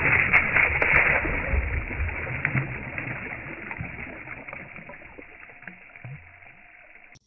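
Water splashing and churning as a fish thrashes away at the surface. It is loudest in the first couple of seconds and dies away gradually.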